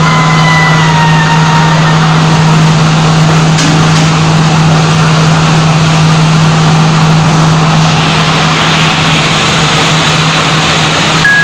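Multi rip saw running with a steady low hum and a constant rushing noise.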